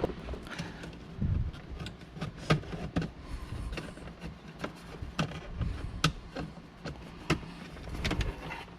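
Plastic interior trim of a car's centre console being handled and worked loose: a run of irregular sharp clicks and taps, with a couple of duller thumps.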